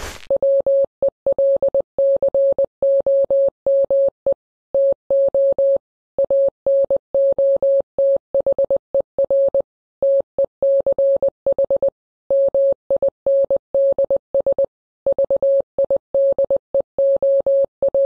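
Clean Morse code (CW) beep tone at one steady pitch, keyed on and off at about 20 words per minute, spelling out "hi and welcome to another tech minds video". A brief whoosh sounds right at the start.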